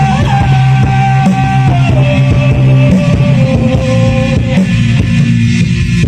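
Live rock band playing on electric guitar, bass guitar and drum kit, loud and steady. A long held high note slides down in pitch in steps over the first few seconds, then fades into the band.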